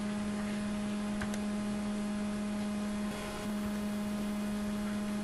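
Steady electrical hum in the recording: one low, even drone with a fainter higher tone above it, over faint hiss.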